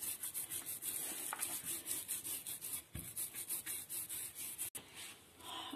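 Wooden rolling pin rolling stiff dough back and forth over a plastic sheet, a repeated soft rubbing that stops about five seconds in.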